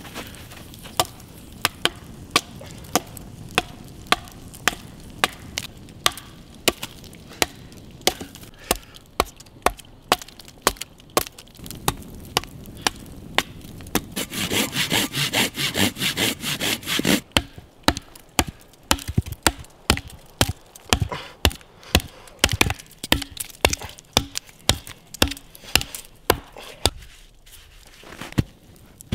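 Wood being sawn by hand, in steady strokes about twice a second, with a faster, louder run of strokes about halfway through.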